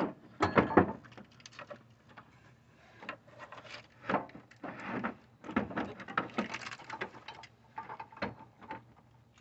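Irregular clunks, knocks and scrapes as a replacement A/C compressor is worked by hand down into a cramped engine bay. The loudest clatter comes about half a second in.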